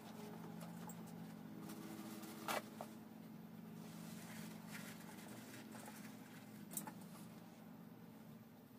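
Paper towels rustling and crinkling as they are torn from a roll and wadded into the openings of an engine block, with two short sharp clicks, over a faint steady hum.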